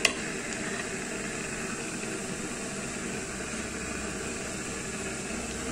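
Chopped garlic frying in melted butter in a wok, giving a steady, even sizzle.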